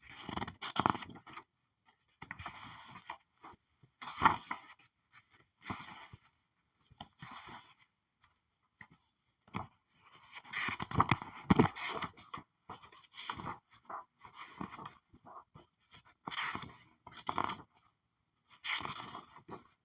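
Paper pages being flipped: a dozen or so separate crisp rustles, one every second or two, with a longer run of rustling about halfway through.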